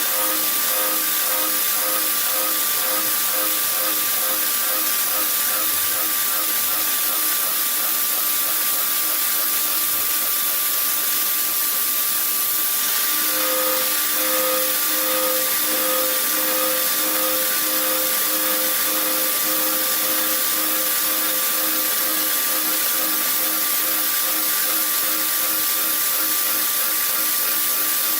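CNC machine running: a steady hiss with a high, steady whine and a lower hum that pulses regularly, growing stronger about halfway through.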